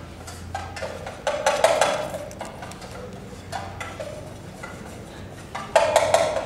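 Two flurries of rapid sharp knocks and clatter, one about a second in and a louder one near the end, with a few single knocks between.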